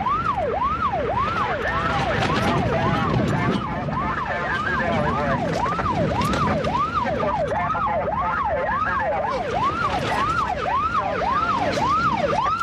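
Police car siren on the fast yelp setting, its pitch sweeping up and down about twice a second. A second siren overlaps it at times, over the rumble of vehicles in pursuit.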